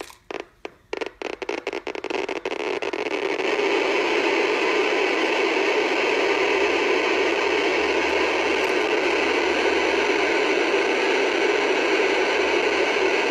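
Geiger counter clicking through its speaker, a Uranium Engineering Co. Babbel Counter Model 610. The clicks speed up quickly and merge into a continuous hiss of counts within about three seconds. This is a very high count rate from gummite, a uranium ore, held to the probe.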